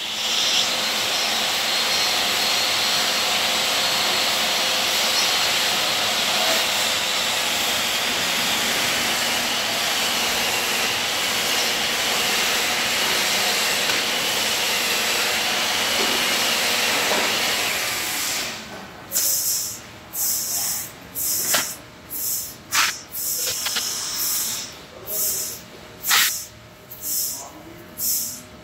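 A steady hiss from running machinery stops about two-thirds of the way through. Then a plastering trowel scrapes across the plaster wall in short, high-pitched strokes, a little more than one a second.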